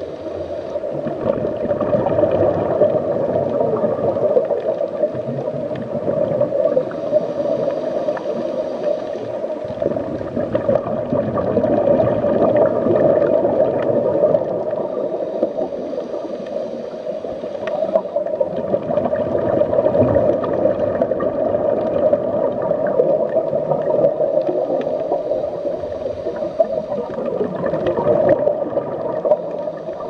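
Steady underwater ambience: gurgling, bubbling water over a low drone, with a faint high shimmer coming back every eight or nine seconds.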